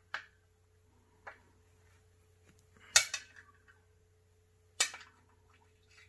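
Small cylindrical metal magnet being handled: several sharp metallic clacks as it knocks against the other magnet and is set down on the hard board. The loudest clack comes about three seconds in, another almost two seconds later, and smaller ones just after the start and about a second in.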